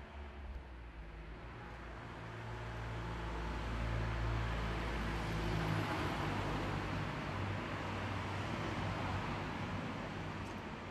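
Road traffic: a passing car's engine and tyre noise swells to its loudest about four to six seconds in, then slowly fades.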